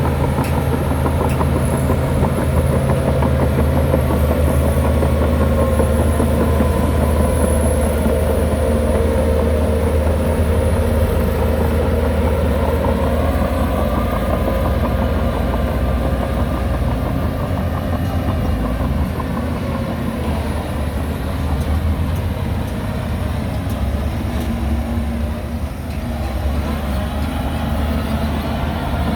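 Heavy earthmoving machine's diesel engine running steadily, with a deep low drone; its pitch rises and eases back about halfway through.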